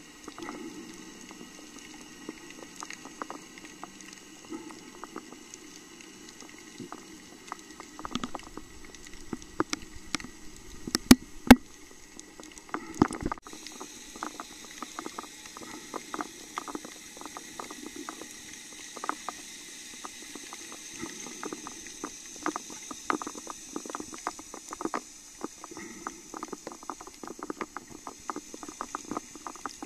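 Underwater sound picked up by the camera: a steady fizzing crackle of many small clicks over a low hum, with three louder knocks about eleven to thirteen seconds in.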